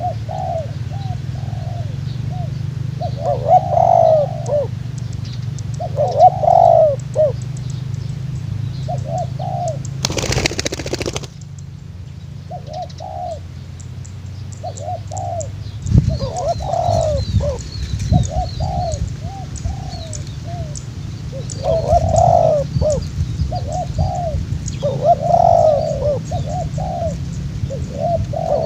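A young spotted dove (tekukur) cooing in short repeated phrases: its first cough-like 'batuk' coos as it begins to sing. A one-second burst of noise cuts across about ten seconds in, with a steady low hum underneath and faint chirps of small birds in the second half.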